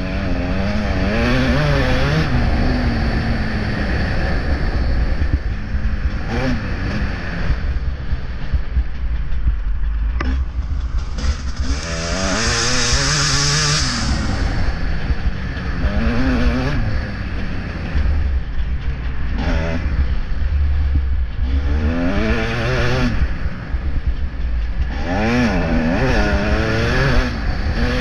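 Motocross bike engine heard from on board during a race, revving up in pitch again and again and dropping back as it pulls through the gears and comes off the throttle, over a steady low rumble.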